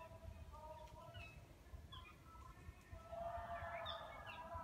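Birds singing: short whistled phrases at several pitches, some sliding up, over a low outdoor rumble.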